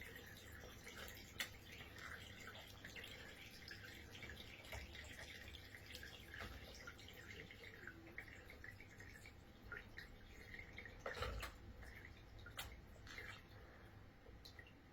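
Faint dripping and light splashing of water as a quaker parrot bathes, with scattered small clicks and a louder knock about eleven seconds in.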